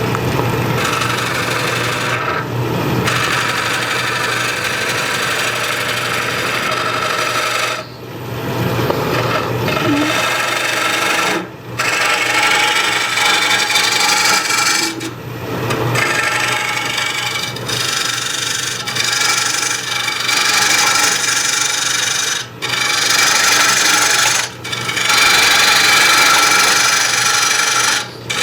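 Turning tool cutting a spinning green-wood bowl blank on a wood lathe, shaping the tenon: a continuous scraping hiss over the lathe's steady low hum, broken by several short pauses in the cut.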